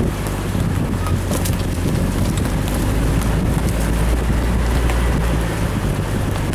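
Off-road vehicle's engine running at a steady low hum while riding, with wind buffeting the microphone and scattered clicks and knocks from the bumpy trail. The engine hum eases a little near the end.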